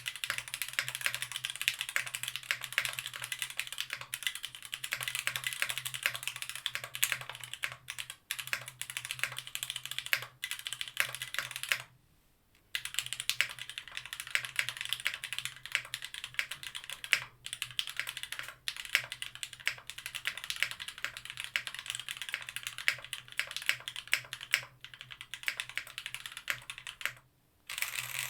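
Fast, continuous typing on a Tofu60 mechanical keyboard with Gateron Milky Top Black linear switches on an aluminium plate and GMK keycaps. It pauses briefly twice, about twelve and twenty-seven seconds in.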